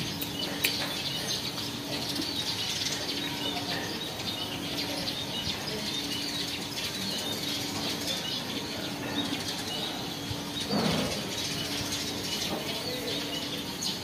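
Brief flutter of a caged hill myna's wings and feathers about eleven seconds in, over a background of faint high chirping from other birds.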